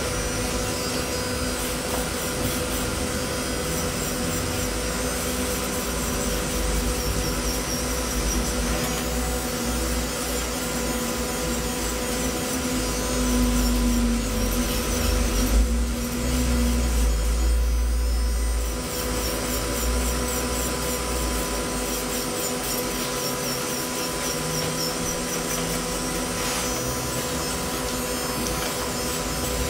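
Electric nail drill (e-file) running steadily as a technician files a client's nails, a high motor whine that rises briefly in pitch about halfway through, over a low rumble that swells at the same time.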